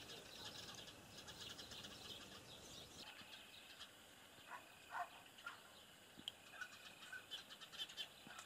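Faint birds calling: a dense patter of high chirps at first, then a thin, steady high note and a few short, louder calls from about three seconds in.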